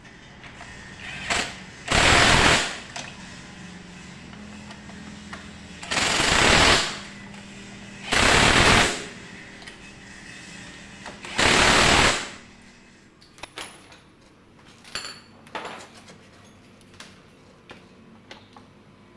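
Four short, loud bursts from a workshop air tool, each lasting under a second with gaps of a few seconds between them, followed by light clicks and knocks.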